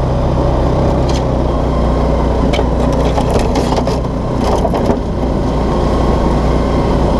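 Linhai Big Horn 400 UTV's engine running steadily as the machine drives along at low speed, heard from the driver's seat, with a few short knocks and rattles from the body over rough ground.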